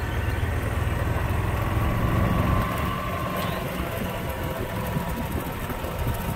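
A vehicle driving slowly on a dirt road: a steady low rumble of the engine and the tyres rolling over the dirt.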